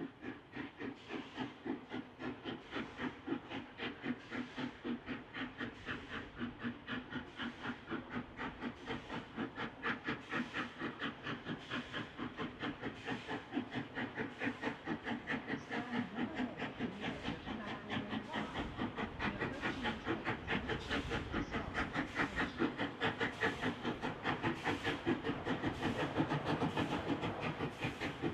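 Rebuilt LMS Royal Scot class three-cylinder steam locomotive 46115 'Scots Guardsman' working slowly at near walking pace, its exhaust beats chuffing in a steady rhythm of about two a second with a steam hiss behind them. The beats grow louder as the engine draws nearer.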